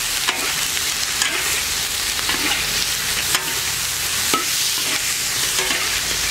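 Goose pieces sizzling in a black iron wok as a metal spatula stir-fries them, the spatula scraping and clacking against the wok several times. A quick stir-fry before stewing.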